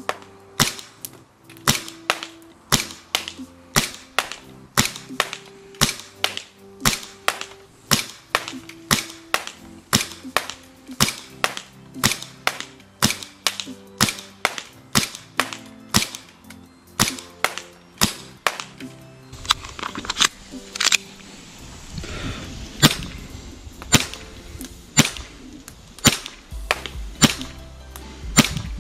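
Smith & Wesson M&P9 Performance Center gas blowback airsoft pistol firing in semi-auto, a long string of sharp shots about one or two a second, each with the snap of the slide cycling.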